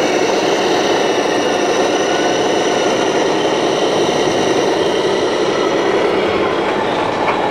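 Steady engine-like drone from radio-controlled scale model trucks driving past, blended with the constant din of a large exhibition hall.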